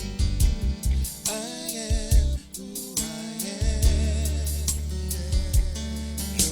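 Gospel group performing a soul-style song: a singer's voice with vibrato over bass and a regular drum beat.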